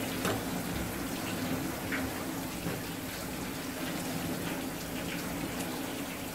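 Tap water pouring steadily onto a cutting board, splashing as gloved hands rinse a piece of fish under the stream.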